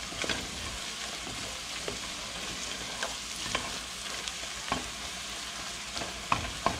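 Onions, bell pepper, celery and garlic sizzling in a stainless steel pot while a wooden spoon stirs and scrapes them, with a few short knocks of the spoon against the pot.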